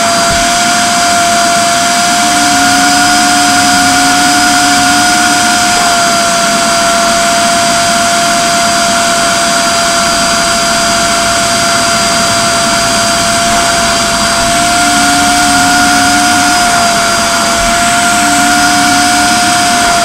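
1000-watt STARQ wet and dry vacuum cleaner running steadily with a loud, high motor whine and rushing air, sucking through its upholstery nozzle as it cleans a car's fabric headliner. The pitch shifts slightly a few times.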